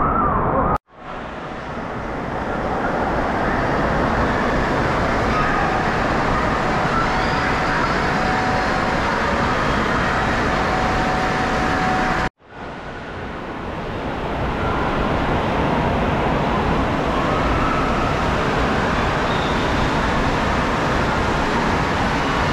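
Indoor water park din: a loud, steady roar of water and echoing crowd noise in a large enclosed hall. It cuts out abruptly about a second in and again about twelve seconds in, swelling back each time.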